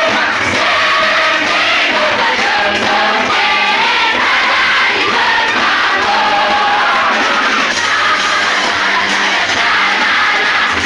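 A large crowd singing together loudly and without a break, many voices at once.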